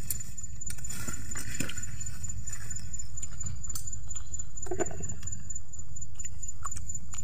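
Eating sounds at close range: scattered small crunches and mouth clicks as raw greens are chewed, over a steady low rumble.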